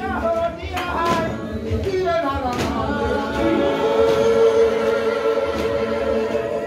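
Congregation singing together, unaccompanied, with a long held note through the second half and a few sharp percussive hits.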